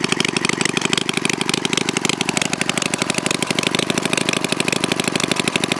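Homemade twin-cylinder engine made from two Briggs & Stratton single-cylinder engines, running steadily on both cylinders with open exhaust ports and no muffler: a rapid, even popping exhaust.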